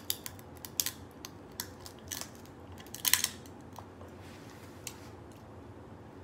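Close-miked eating sounds: a string of sharp, crisp clicks and crunches from shrimp shells being peeled and bitten. The loudest cluster comes about three seconds in.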